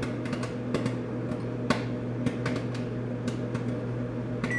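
Popcorn popping inside a running Samsung microwave oven: scattered sharp pops, a couple a second, over the oven's steady hum. The oven starts beeping at the very end as its timer runs out.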